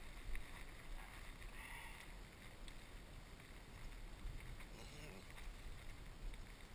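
Faint wind rumble on the microphone, a steady low buffeting under a soft hiss.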